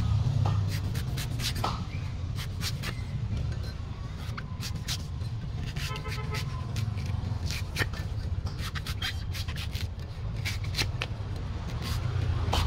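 Meat cleaver chopping and shaving the husk of a young golden coconut: many sharp, irregular chops and scrapes, over a steady low rumble.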